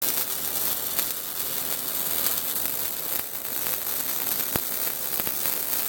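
Welding arc crackling and sizzling steadily, with a few sharper pops.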